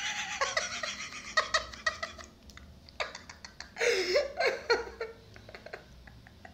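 A man and a woman laughing together in breathy, pulsing fits that fade, swell again in the middle, then turn to stifled giggles muffled behind their hands.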